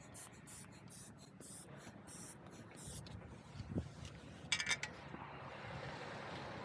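A run of short, rhythmic hissing strokes, about two or three a second, that stops about three seconds in. About a second and a half later comes a quick metallic rattle of sharp clicks with a brief ring.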